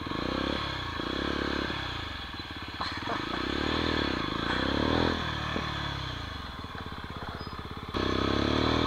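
125 cc trail motorcycle engine under way, revving up and dropping back in pitch several times as the bike pulls off and rides on.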